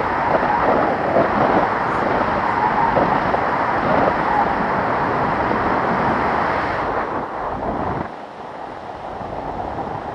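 Wind rushing over the camera microphone from a paraglider's flight, a loud, even noise. It drops suddenly about eight seconds in and goes on more softly.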